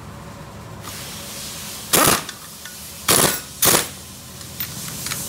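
Impact wrench running the clutch nut down tight on a Honda Wave RSX 110 engine: three short rattling bursts, about a second apart, the second and third close together.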